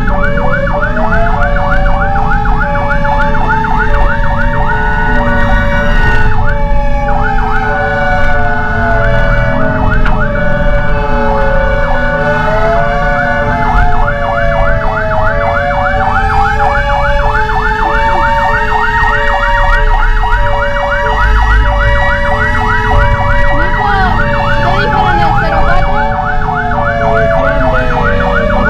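Fire engine sirens running together during an emergency response: a fast yelp repeating steadily, a slow wail rising and falling twice, and a high-low two-tone alternating about once a second, over the low rumble of the truck's engine.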